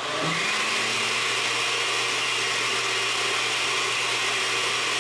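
Countertop glass-jar blender on its liquefy setting, blending boiled sea moss into a thick milky liquid. The motor comes up to speed in the first half-second, then runs steadily with a low hum under a loud whirring rush.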